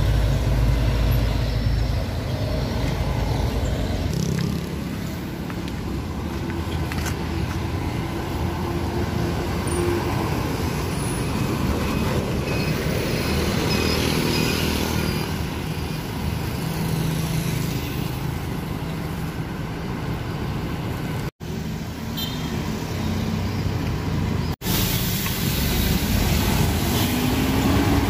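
Roadside traffic: motorcycles and cars passing, with a large intercity coach driving by and pulling away. The sound drops out briefly twice in the second half.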